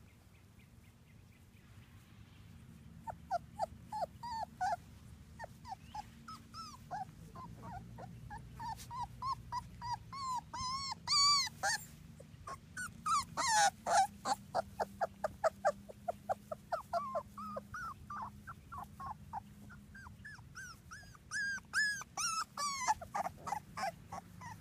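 Three-week-old Labrador Retriever puppies whimpering and squealing in quick runs of short, high cries, starting a few seconds in and loudest about halfway through and again near the end.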